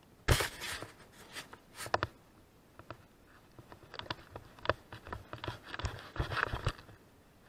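Handling noise as a fishing rod and line are worked to land a fish on wet sand: irregular knocks, clicks and short rustling scrapes, the loudest knock coming just after the start.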